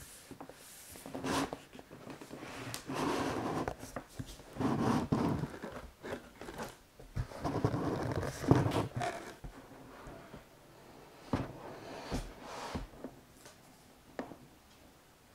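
Cardboard box inserts and a paper cover sheet being slid, folded and rustled by hand while a computer is unpacked, with scattered small taps and one sharper knock a little past halfway.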